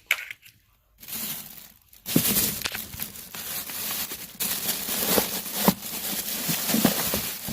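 Plastic packaging crinkling and rustling as frozen soup pouches are handled. A short rustle comes about a second in, then steady crinkling from about two seconds in, with several sharp clicks and knocks.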